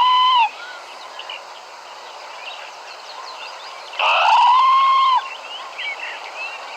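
Parrot calling: a loud call that ends about half a second in, and another about four seconds in. Each is a pitched note that rises and then holds. Softer short chirps come between them over a steady background hiss.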